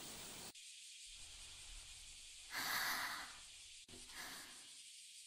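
A girl's breathy sigh, a short out-breath about halfway through, followed by a fainter breath about a second later.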